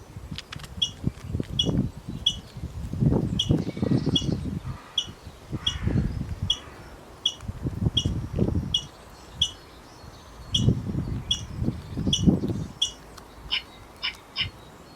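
Squirrel chirping: short, high chirps repeated about twice a second, giving way near the end to a quicker run of chirps. Low, irregular rumbles sound underneath.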